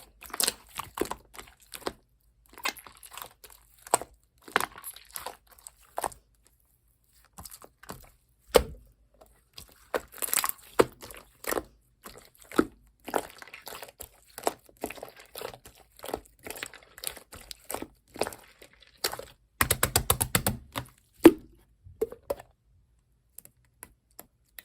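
Slime being pressed and stretched by hand, making irregular clicking pops and crackles, with a fast run of pops a few seconds before the end.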